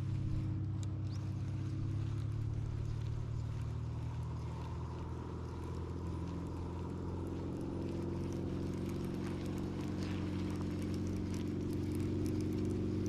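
Boat's outboard motor running steadily at low trolling speed, a continuous low hum that eases a little for a few seconds midway, with light water patter.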